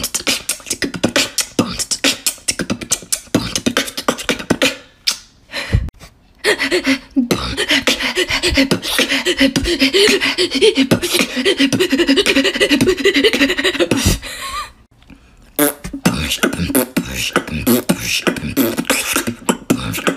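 A woman beatboxing: fast mouth clicks, pops and hisses for the first several seconds, then a stretch with hummed, pitched sounds mixed into the beat. There is a pause of about a second near fifteen seconds in before the beatboxing starts again.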